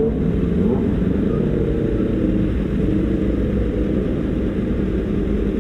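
Sport motorcycle engines idling steadily as the bikes creep forward in a queue.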